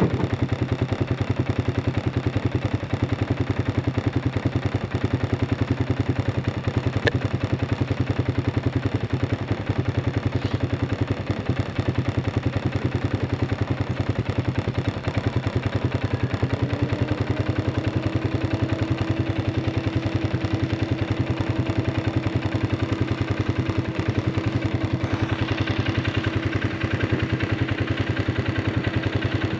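An engine running steadily with an even, fast pulsing beat; a steady whine comes in about 17 seconds in and holds.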